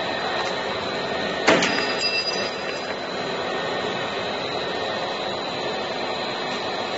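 Tortilla-chip dough sheeting and cutting machine running, its rollers giving a steady mechanical whirr with a thin high tone over it. A single sharp knock comes about a second and a half in.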